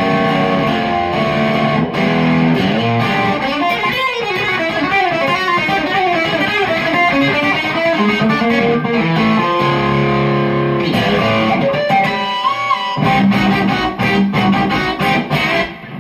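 Electric guitar played through a Koch Amps 'The Greg Jr' prototype amplifier in a country chicken-pickin' style: quick runs of single notes, with a chord held for about a second near the middle before the fast licks resume.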